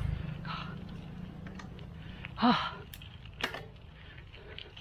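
A cyclist breathing hard while climbing a steep hill, with one loud voiced gasp or grunt falling in pitch about halfway through. Two sharp clicks follow shortly after.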